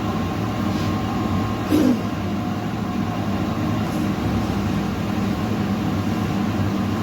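Arc welding machine running with a steady electrical hum, and one short louder knock just before two seconds in.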